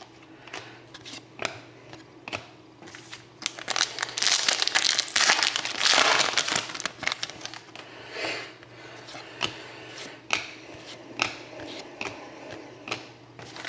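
Plastic wrappers of hockey card packs crinkling and tearing as packs are opened and cards handled, with irregular crackles and clicks and a busier stretch of rustling about a third of the way in.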